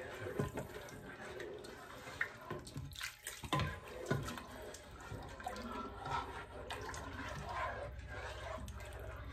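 A spoon stirring beef broth in a nonstick pot: liquid swishing and sloshing, with a few light knocks of the spoon against the pot in the first half.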